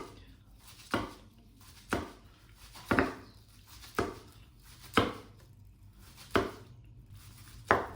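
Knife cutting a sushi roll into pieces. Eight sharp chopping knocks, about a second apart, the last two a little more spaced.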